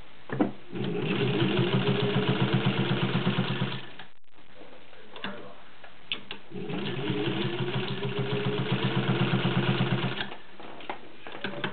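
Singer 15-91 sewing machine, driven by its potted direct-drive motor, stitching through two layers of suede in two runs of about three seconds each. The rapid, even stitching speeds up as the motor winds up, with a few short clicks between the runs.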